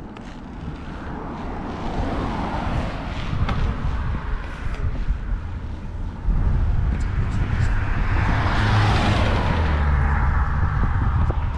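A passing vehicle, its noise swelling and fading over a few seconds, over a low rumble that gets louder about six seconds in.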